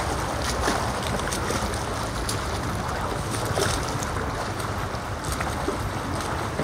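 Swimmers splashing and kicking in an indoor pool: a steady wash of water noise with small splashes.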